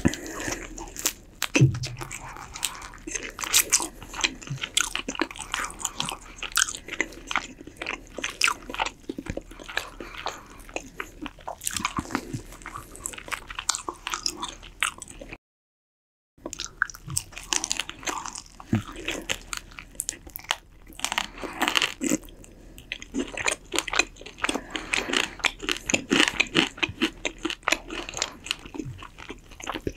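Close-miked eating of roast chicken: biting, chewing and wet smacking with many irregular crunchy clicks. The sound cuts to dead silence for about a second just past the middle, then the chewing resumes.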